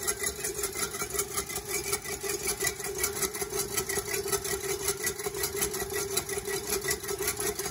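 KitchenAid stand mixer running steadily on a slow speed, its wire balloon whisk spinning through a single egg white in a stainless steel bowl: a steady motor hum with a fast, even whirring rhythm.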